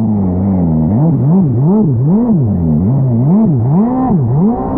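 180 hp engine of a Fast Powersports F1 jet ski revving up and down over and over, about twice a second, as the rider works the throttle through turns.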